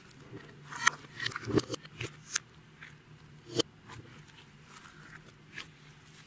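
Clear slime being worked by hand, making scattered sticky clicks and small pops, busiest between one and two and a half seconds in, with a sharp click about three and a half seconds in.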